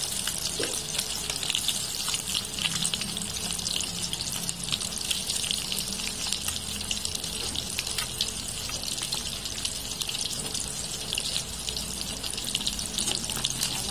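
Small battered fish deep-frying in hot oil in a metal wok: a steady, dense crackling sizzle full of fine pops. This is the second fry, done to make the fish crunchy.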